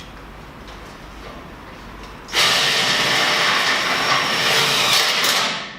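A handheld drill motor runs steadily for about three seconds, starting a little over two seconds in and winding down just before the end.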